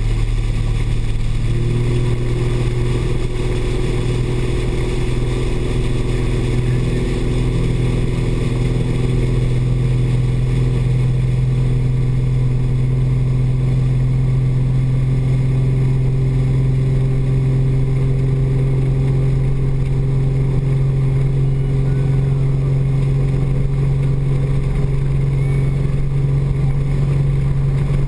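Speedboat engine running steadily at speed, a loud, even drone, with the rush of water along the hull and wake.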